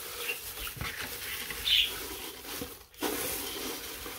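Crinkle-cut shredded paper filler rustling and crackling as a hand rummages through it and lifts it out of a cardboard box.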